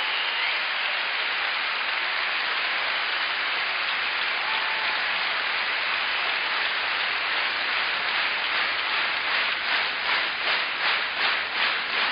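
A large audience applauding in a concert hall as a dense, steady roar of clapping. From about three-quarters of the way through it turns into rhythmic clapping in unison, about three claps a second.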